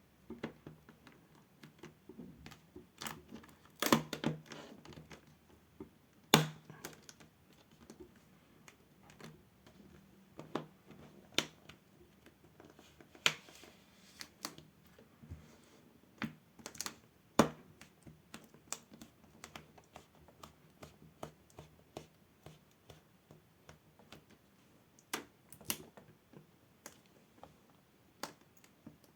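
Plastic clips of a laptop screen bezel clicking into place as fingers press around the frame: irregular sharp clicks and taps, a few louder snaps about 4, 6 and 17 seconds in.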